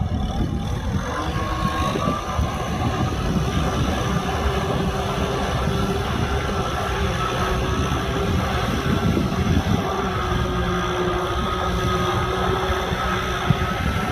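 Kubota M6040SU tractor's four-cylinder diesel engine running steadily under load while plowing mud, with a faint steady whine above the engine note.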